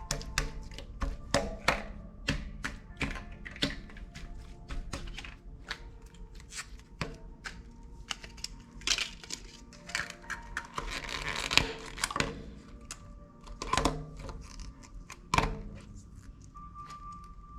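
Slime being squished and poked by hand, making irregular clicks and pops, with a denser crackly stretch about two-thirds of the way in; soft background music plays underneath.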